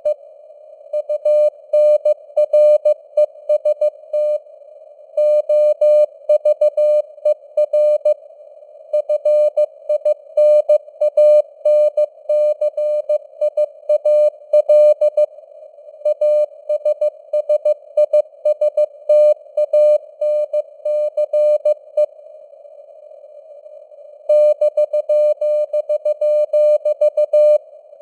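Morse code (CW) sent at 15 words per minute: a single steady mid-pitched tone keyed on and off in dots and dashes, over a constant hiss of simulated radio noise. The sending stops for about two seconds near the end, then starts again.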